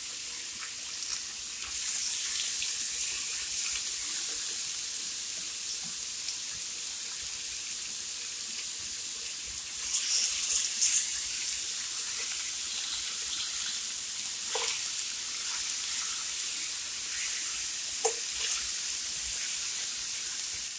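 Tilapia fillets sizzling on a round electric indoor grill: a steady hiss that grows louder about two seconds in. Metal tongs click and scrape against the grill plate around ten seconds in and a couple of times later.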